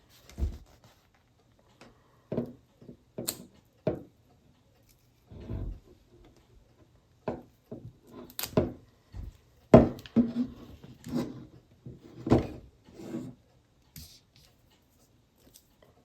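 Hands handling and working on a headphone earcup: scattered rubbing, scraping and light knocks with short pauses between them, as old adhesive residue is cleaned off the cup.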